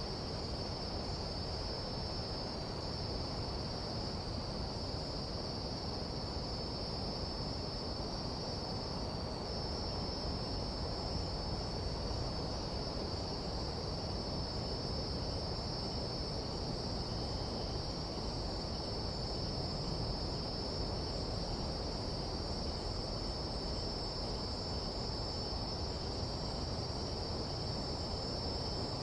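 Nighttime tropical-jungle insect chorus: a steady, unbroken high-pitched trill of crickets or katydids, over a low, even background hiss.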